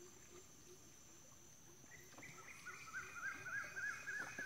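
Night insects shrilling steadily in mangrove. About halfway in, an animal starts a repeated chirping call of quick rising-and-falling notes, about three a second, louder than the insects.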